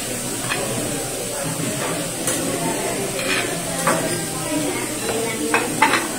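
Food sizzling on a teppanyaki griddle, with a few short clinks and scrapes of metal utensils and dishes on the steel, over low voices in the background.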